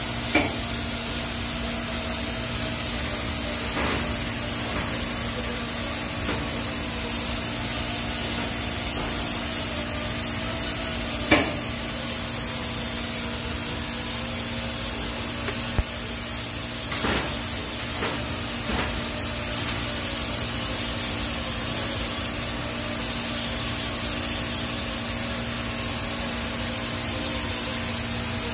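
TIG welding arc on stainless steel pipe during a root pass: a steady hiss with a faint hum, broken by a few sharp ticks.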